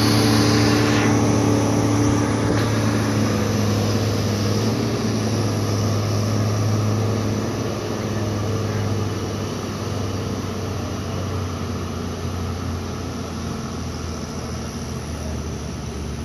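John Deere farm tractor's engine running under heavy load as it drags a weight-transfer sled down the pull track. Its steady note fades gradually as it moves away.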